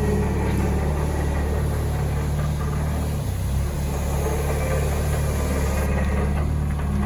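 Diesel engine of a Hyundai Robex 55W-9A wheeled excavator running steadily at a constant low speed.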